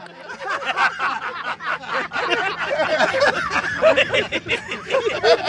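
A group of men laughing loudly together, many voices overlapping in chuckles and guffaws. The laughter builds after about two seconds. A steady low hum runs underneath.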